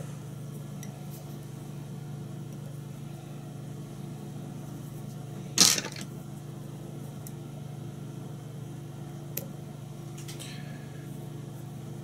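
Steady low hum, with one brief, loud scratchy rustle about halfway through and a faint tick and rustle later, from fingers handling a fly held in a tying vise.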